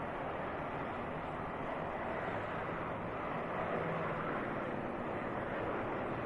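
Steady vehicle noise: an even rush with a faint low hum underneath.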